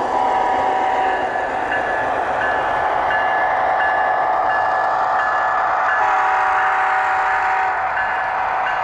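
Sound-equipped model BNSF diesel locomotives running past close by, with diesel engine and rolling noise from their small onboard speakers. A multi-note horn sounds briefly at the start and again, held for about two seconds, near the end.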